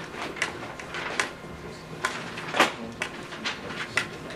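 Scattered light clicks and knocks of objects being handled, with one louder knock about two and a half seconds in.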